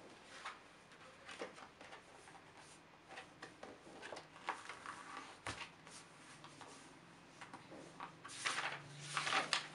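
Faint rustling and handling of paper and a workbook on a desk, with scattered light taps and one sharper knock midway; the paper rustling grows denser near the end.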